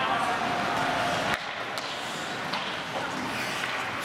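Ice hockey rink sounds during play: skates scraping on the ice over a steady hiss, with a few sharp clacks of sticks and puck. The sound drops abruptly about a second and a half in.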